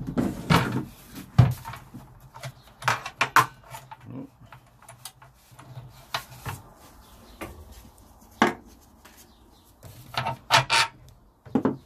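Plastic drum lid with a rubber-rimmed edge being lifted off the drum and handled, giving a series of irregular knocks, clatters and scrapes of plastic on plastic.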